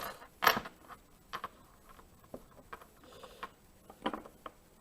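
Small metal lock parts of a disassembled rim cylinder, its pins and key, clicking and tapping as they are handled, in a loose string of sharp clicks with the loudest about half a second in.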